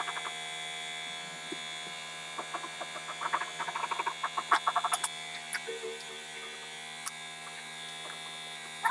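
Steady electrical hum of workshop machinery, with bursts of crinkling and rustling as a leather jacket is handled and folded, busiest between about two and five seconds in.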